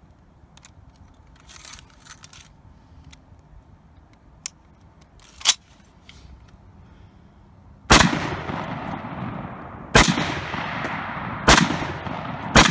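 Light clicks of the M1 Garand being handled, with one sharper click about five and a half seconds in. Then the rifle fires four .30-06 shots, starting about eight seconds in and one to two seconds apart, each with a long echoing tail.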